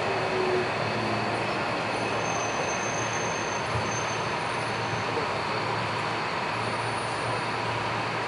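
Steady running noise of a driverless, rubber-tyred Kanazawa Seaside Line automated guideway train, heard from inside the car while it is moving. A faint high squeal comes in about two seconds in and fades a few seconds later.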